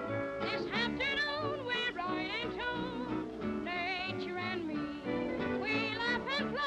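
1930s cartoon soundtrack music: an orchestra playing, with a high voice singing long notes in strong vibrato over it from about half a second in.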